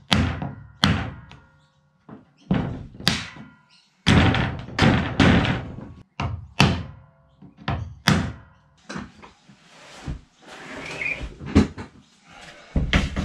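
Claw hammer striking a wood chisel held against a 12 mm plywood sheet to chop notches in its top edge: about a dozen sharp blows at uneven intervals over the first nine seconds. After that comes a few seconds of softer scraping noise.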